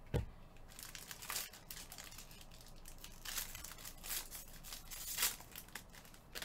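Foil wrapper of a trading-card pack crinkling and tearing in irregular crackles as it is opened by hand, with a light knock just after the start.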